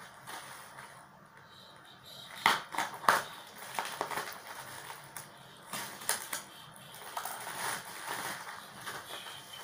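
A parcel being cut open with scissors and unwrapped: sharp snips and snaps with crinkling plastic packaging, the two loudest about two and a half and three seconds in, then rustling as the wrapped item is pulled out.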